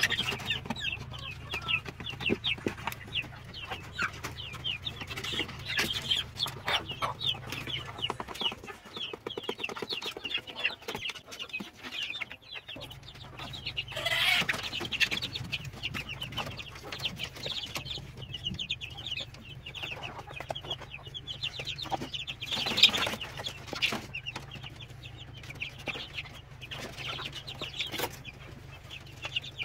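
A flock of chickens clucking and cheeping in a coop: a busy, unbroken run of short calls, louder about halfway through and again near three-quarters of the way.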